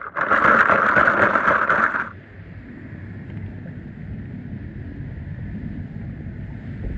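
Die-cast toy cars clattering and scraping against each other in a plastic tub as a hand rummages through them, for about two seconds. After that comes a quieter, steady low rumble.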